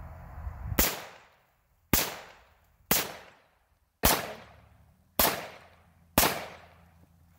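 Six rifle shots from an AR-15 chambered in 5.7x28 mm, fired semi-automatically about one a second, each ringing out for most of a second before the next.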